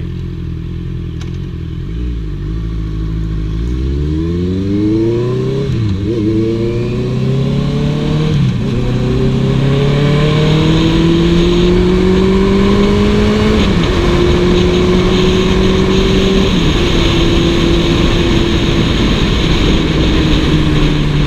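Honda CB650F's inline-four engine pulling away from low revs a couple of seconds in, the pitch climbing through each gear and dropping at several upshifts before settling into a steady cruise. Wind rush builds with speed.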